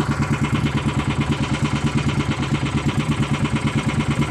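Outrigger boat's engine running steadily under way, a low hum with a fast, even beat of about ten pulses a second.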